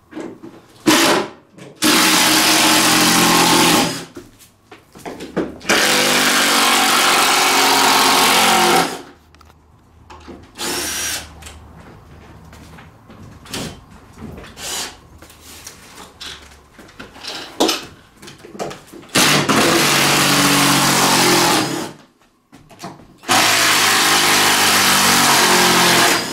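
Power drill running in four long bursts of about three seconds each, driving screws into timber floorboards, with quieter knocks and handling clicks in between.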